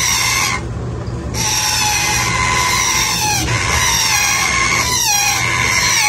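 Indian ringneck parakeet chicks giving harsh, rapidly repeated calls that fall in pitch, the eager begging of hungry chicks about to be hand-fed.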